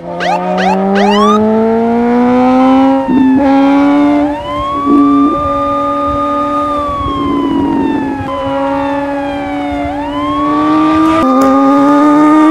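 Superbike engine running under load, its revs climbing over the first few seconds and then holding steady. Over it a siren wails twice, each time rising quickly, holding, then falling slowly.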